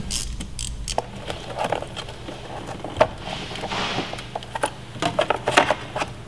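Hands working on engine-bay parts: scattered light clicks and knocks as plastic covers and hoses are handled, with a brief rubbing sound about four seconds in.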